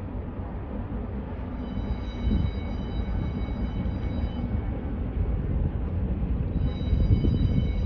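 Low, steady rumble of the Great Lakes bulk freighter John D Leitch passing close by. A high, steady whine comes in about two seconds in, fades around the middle and returns near the end.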